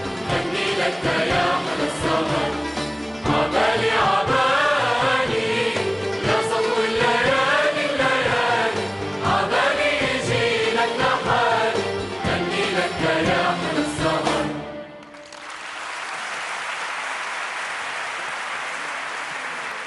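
Large choir singing with an orchestra, the voices wavering over a rhythmic instrumental backing; the piece ends abruptly about fifteen seconds in. The audience then breaks into steady applause.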